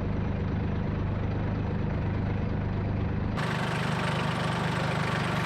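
Compact tractor's diesel engine running steadily. About three and a half seconds in the sound changes abruptly to a harsher, hissier tone.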